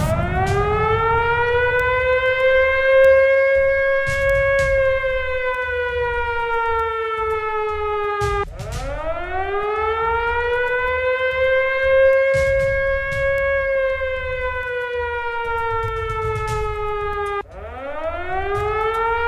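Air-raid siren wailing: it winds up quickly to a high steady pitch, then sinks slowly. It does this twice, and starts winding up again near the end.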